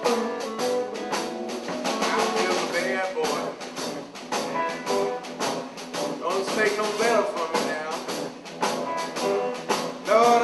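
Blues band playing: electric guitar over a steady drum beat.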